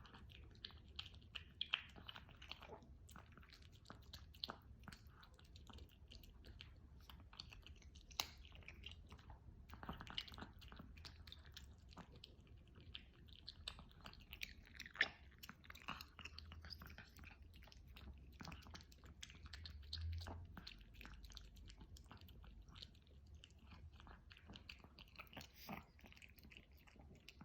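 Chihuahua chewing, heard faintly as many small, irregular clicks and mouth sounds.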